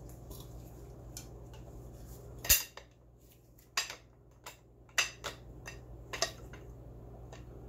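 Metal-on-metal clicks and clanks from an old Iver Johnson Champion single-barrel break-action shotgun as it is handled and its barrel is worked loose from the receiver during disassembly. There are about half a dozen sharp knocks, the loudest about two and a half seconds in.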